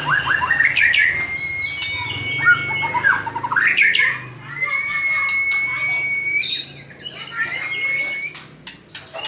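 White-rumped shama singing: long, level whistled notes held for a second or more, broken by quick runs of rising and falling chirps. Sharp clicking notes come near the end.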